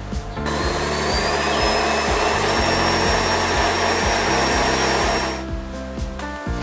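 Countertop blender running on berries blended into a smoothie, switched on about half a second in and off about five seconds in. Its motor whine rises as it spins up, over the grinding of the fruit.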